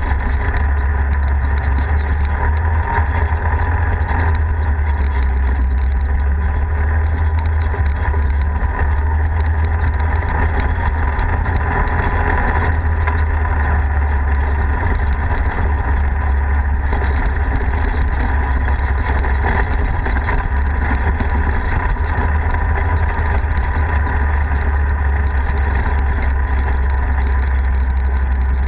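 Polaris RZR side-by-side's engine running at a steady cruise while driving, a loud, constant low drone with steady higher tones over it.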